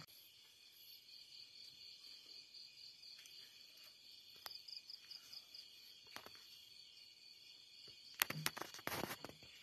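Faint, steady high chirring of night insects, crickets, with a pulsing trill about halfway through. Near the end comes a cluster of sharp clicks and rustles.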